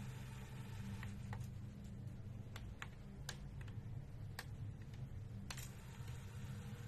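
Onkyo cassette deck's transport mechanism clicking: a series of sharp clicks at irregular intervals as the tape is wound forward and then rewound, over a low steady hum.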